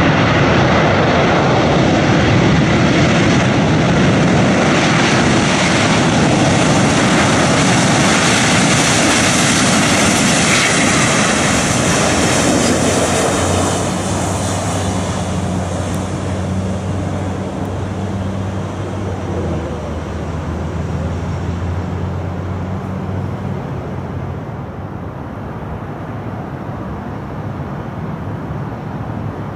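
Twin CFM56 turbofan engines of a Boeing 737-800 running loud on the landing roll. About 13 seconds in the noise drops sharply, settling into a lower, steady engine hum that fades as the jet slows.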